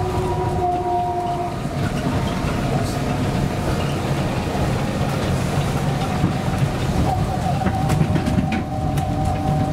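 A Heathrow ULTra pod, a small battery-electric vehicle on rubber tyres, running along its concrete guideway, heard from inside the cabin: a steady low rumble with a thin, steady whine over it. A few light clicks come near the end.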